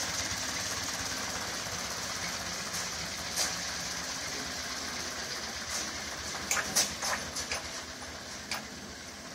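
1951 Ford 8N tractor's four-cylinder engine running at low, steady speed as it drives off, growing gradually fainter. A few short clanks come through near the end.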